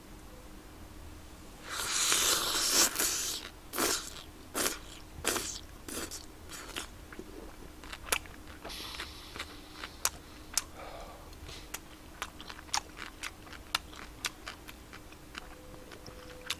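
Close-miked eating of spicy tteokbokki: a loud wet bite or slurp about two seconds in, then chewing with a run of short sharp mouth clicks and smacks.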